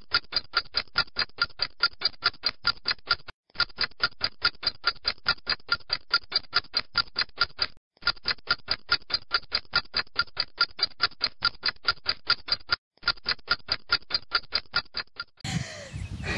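Rapid, evenly spaced ticking of a clock-style timer sound effect, dropping out briefly three times and stopping shortly before the end.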